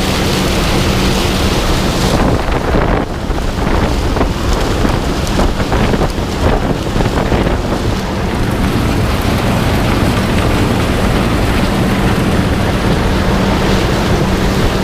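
A combine harvester running steadily with a constant hum, under heavy wind noise on the microphone. The high hiss drops off about two seconds in.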